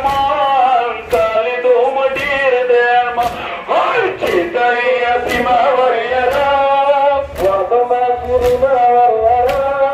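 Male voices chanting a Pashto noha, a Muharram mourning lament, with sharp chest-beating slaps of matam keeping time about once a second.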